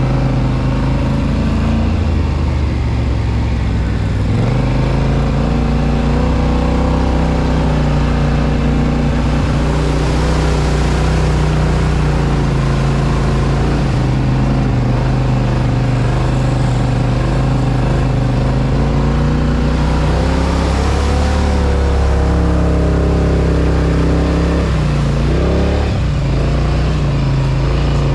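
Off-road vehicle engine running under load, its pitch shifting a few times as the throttle changes. A rushing hiss swells twice, around ten and twenty seconds in.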